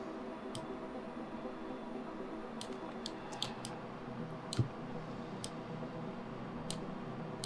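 Computer mouse clicks: about ten short, scattered single clicks, one a little after the middle with a dull knock, over a faint steady hum.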